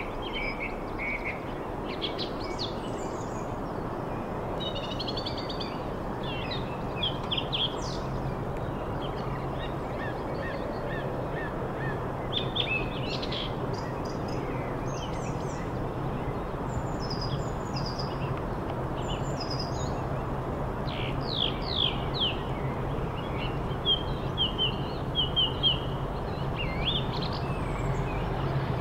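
Summer birdsong, many small birds chirping and trilling, over a steady low drone that slowly grows louder: a pair of Class 37 diesel locomotives, English Electric V12 engines, approaching on full power.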